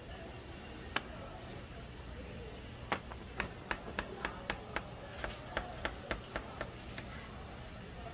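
A quick run of sharp taps, about three a second for around four seconds, after a single tap about a second in.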